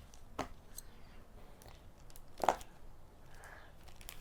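Silicone pop it fidget toy shaped like a lobster, its bubbles pressed so they pop with sharp clicks. The clicks are sparse, two of them louder, about half a second in and about two and a half seconds in.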